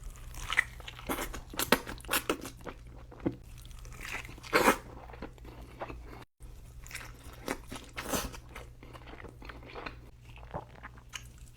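A person biting and chewing burger-and-fries food close to the microphone: irregular, wet smacks and crunches, the loudest about four and a half seconds in.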